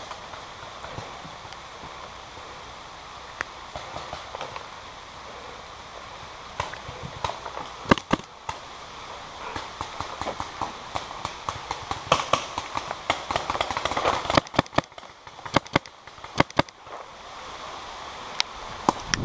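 Paintball markers firing: scattered sharp pops, some in quick strings, clustered about 8 seconds in and again through the second half, over a steady hiss of rain.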